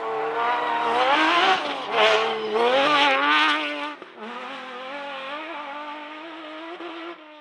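Off-road rally car's engine revving hard, its pitch rising and dropping several times through gear changes, loudest in the first four seconds. After about four seconds it settles to a quieter, steadier run as the car drives away.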